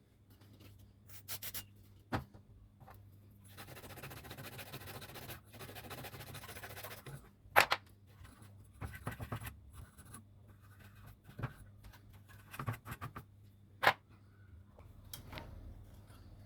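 Small hand tools on a circuit board during a power-supply repair: sharp clicks and taps, and about three seconds of scraping near the middle.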